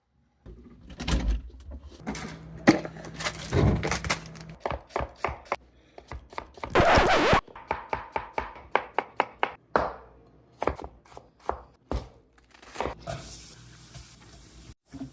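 Kitchen knife chopping vegetables on a cutting board: irregular knocks, then a quick, even run of chops. A loud hiss lasts about a second around the middle, and a softer steady hiss comes in near the end.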